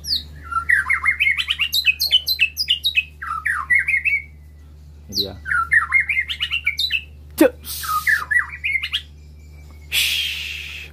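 A male white-rumped shama singing in its cage. It gives quick runs of varied, sliding whistled notes in several phrases with short pauses between them. The song is broken by a short harsh hiss near the end.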